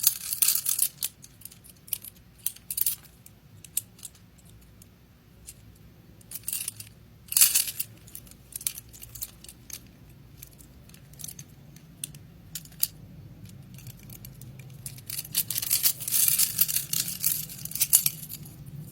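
Small resin jewelry pieces being handled: scattered sharp clicks and taps, with longer bursts of handling noise about seven seconds in and again near the end.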